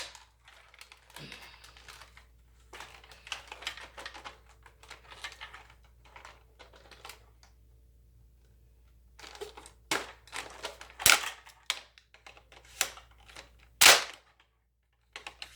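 Clicks and rattles of a plastic Nerf blaster being handled, with a few sharp, louder snaps about ten, eleven and fourteen seconds in.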